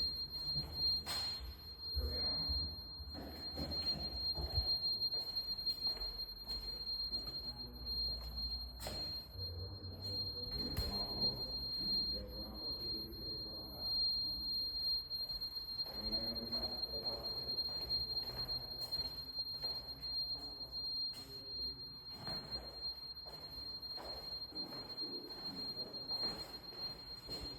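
Indistinct voices talking on and off, over a steady high-pitched whine and a low rumble.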